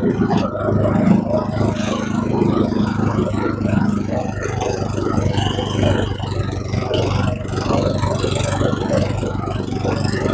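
Motor vehicle engine running steadily while driving, with a low hum that shifts slightly about four seconds in.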